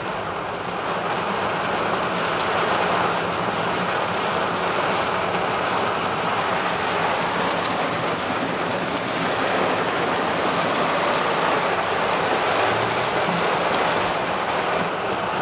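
Heavy tropical rain falling on a car's roof and windscreen, heard from inside the car as a steady, dense hiss, with a faint low hum underneath.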